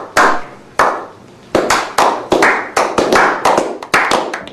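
A few people's slow clap: single claps about a second apart that quicken to about three a second.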